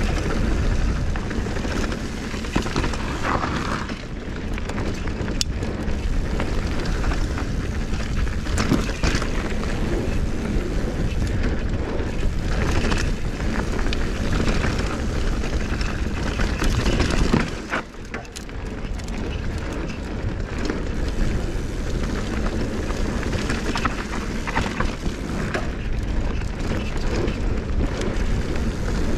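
Mountain bike descending a rocky dirt trail: tyres crunching over gravel and loose rock, with scattered knocks and rattles from the bike, under steady wind rumble on the microphone. The noise dips briefly about two-thirds of the way through.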